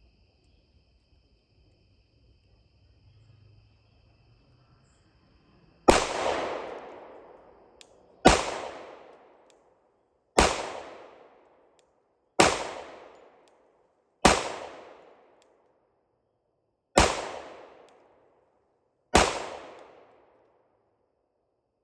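Seven .45 ACP pistol shots from a Glock 21 Gen 4, fired slowly, roughly two seconds apart, starting about six seconds in. Each crack is followed by an echo that dies away over a second or so.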